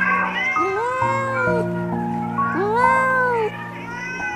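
A cat meowing: long meows that rise and fall in pitch, about every two seconds, over background music with sustained notes.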